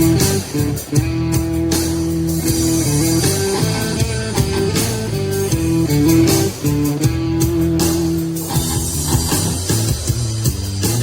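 Guitar-led rock music played back through a portable speaker, with held melody notes over a bass line.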